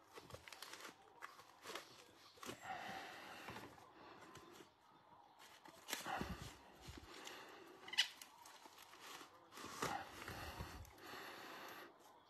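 Faint rustling and handling noises with a few sharp clicks, the loudest about 8 seconds in, as a card-break prize is unwrapped.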